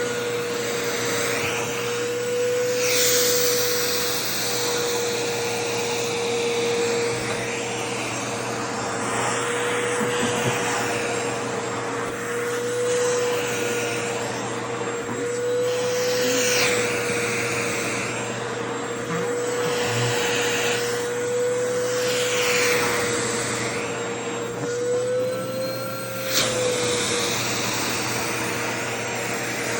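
A vacuum cleaner runs continuously with a steady whine. The rush of air changes every few seconds, swelling and falling as the nozzle sucks at and releases skirt fabric.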